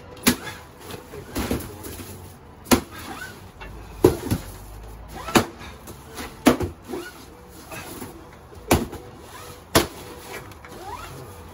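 A stick whacking a cardboard llama piñata hanging on a rope: about eight sharp hits, irregularly spaced a second or two apart.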